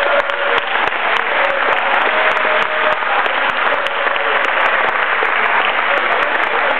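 Spectators applauding: many hands clapping steadily, with a few voices mixed in.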